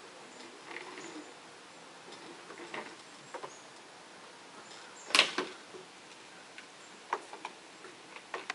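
A plastic baby walker with a toy tray, knocking and clicking as it is handled and moved: scattered light clicks, one sharp clack about five seconds in, and a quick run of small clicks near the end.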